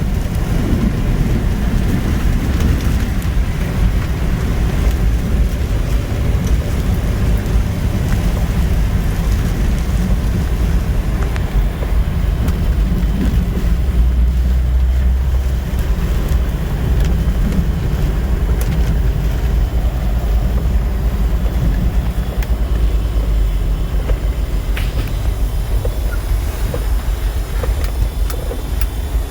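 Jeep driving over a rough, potholed road: a steady low rumble of engine and tyres, with a few light knocks near the end.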